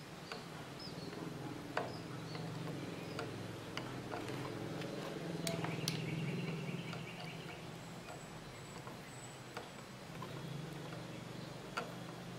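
Soldering components onto a perfboard: scattered light clicks and taps of the soldering iron tip and component leads against the board, over a low steady hum. About five and a half seconds in there is a short run of rapid chirps from an animal.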